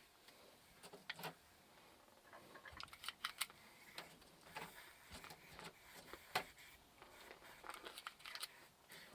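Quiet handling noises: scattered light clicks, taps and rustles.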